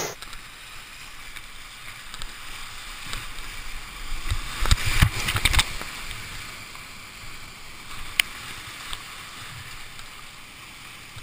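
Whitewater rapids rushing around a kayak, heard from the kayak's cockpit as a steady hiss. A cluster of knocks and splashes comes about five seconds in, and a single sharp click a few seconds later.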